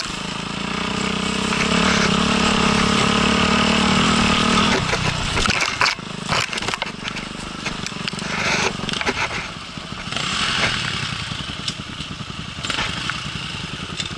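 Off-road dirt bike engine held at steady high revs for about four seconds, then dropping back to lower, uneven revs over rough ground, with a few knocks and clatters.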